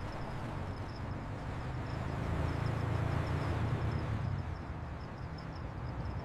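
Scooter engine running steadily with a low rumble that swells a little midway and then eases, under a faint high-pitched chirping.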